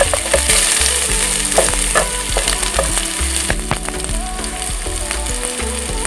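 Chopped red onion and garlic sizzling in a little hot oil in a ceramic-coated frying pan. A wooden spatula scrapes and taps against the pan during the first few seconds, then the sizzle carries on alone.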